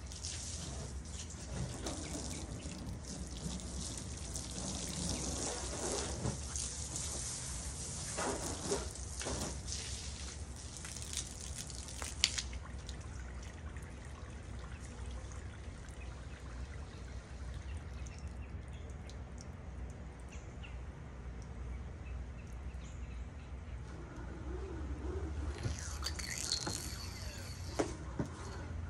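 Garden hose spraying water onto a car, a steady hiss that stops about twelve seconds in. After that it is quieter, with a short high chirp near the end.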